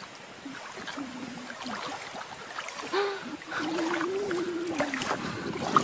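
Shallow water splashing as a pug's paws paddle in it, with a few sharper splashes in the second half. A wavering, held voice sounds twice, briefly about a second in and longer from about three seconds in.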